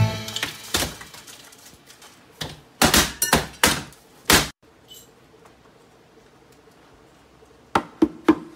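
Hammer blows knocking on a wooden window frame: about eight uneven knocks, a quiet gap of a few seconds, then three more near the end.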